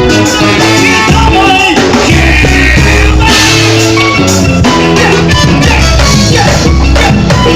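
Loud Brazilian pagode music with a steady beat and a bass line.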